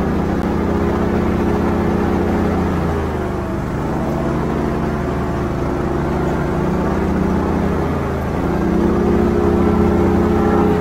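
Airboat built on an inflatable PVC boat, heard from aboard while under way: its engine and caged propeller running steadily. The revs ease off around three to four seconds in, dip again near eight seconds, then climb back before easing near the end.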